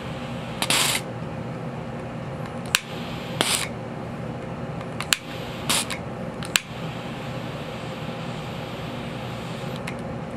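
Handheld torch lighter clicking several times, with three short fizzing bursts about three seconds apart as tiny specks of firework composition flare up in a small tin.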